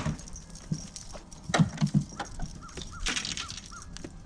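Sharp knocks and light metallic jangling from a freshly caught bass and the A-rig's wires and hooks being handled on the boat, loudest at the start and again around the middle. A run of four short chirps comes near the middle.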